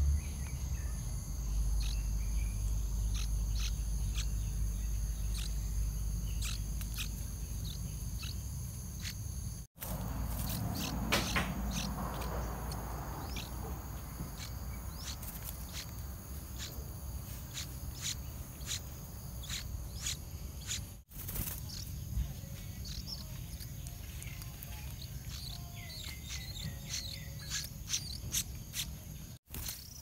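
Insects droning steadily in two high, even tones, with many short high bird chirps scattered throughout. A low rumble sits underneath, strongest in the first ten seconds, and the sound cuts out briefly three times.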